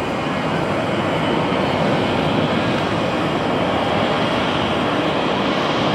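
Ilyushin Il-76TD-90VD cargo jet's four PS-90A turbofans at takeoff power as the aircraft lifts off: a steady, dense jet noise growing slowly louder.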